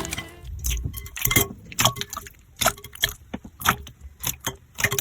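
Slime being worked by hand, giving irregular sticky pops and crackling clicks.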